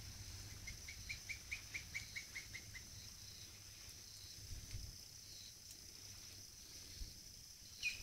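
A bird calling a quick run of about ten short, even notes, roughly five a second, that fades out after a couple of seconds. A faint steady high hiss runs underneath.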